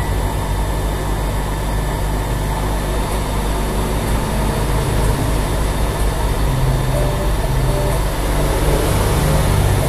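UAP hot air rework station blowing steadily onto a phone board to heat a large IC for lifting off: a steady rush of air with a low hum.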